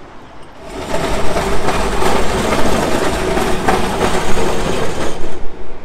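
A vintage W-class tram passing close by: a loud, steady running rumble of its wheels on the rails and its traction gear, with a few clacks over the track. It builds up about a second in and dies away near the end.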